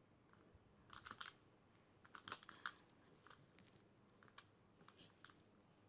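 Faint plastic clicking and rattling from a Rubik's cube being handled and its layers turned. There is a short cluster of clicks about a second in, a louder cluster about two seconds in, then a few scattered ticks.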